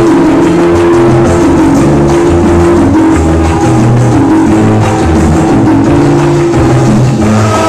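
Loud recorded music played by a sonidero DJ through a sound system: a steady beat with a moving bass line.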